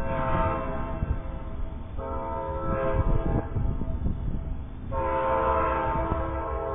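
Amtrak passenger train's air horn sounding for a grade crossing: two long blasts back to back, then after a gap of about a second and a half a third long blast begins near the end.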